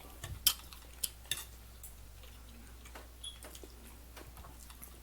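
Cutlery clicking and tapping on dinner plates during a meal: a few sharp taps in the first second and a half, fainter ones after, and a brief clear ring of metal on a plate about three seconds in.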